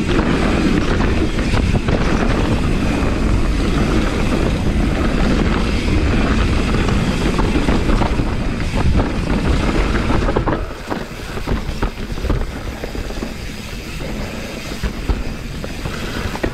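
Mountain bike rolling along a dirt trail: wind on the action-camera microphone mixed with tyre noise and rattling from the bike. About two-thirds of the way through it gets clearly quieter as the bike slows, leaving scattered clicks and crunches.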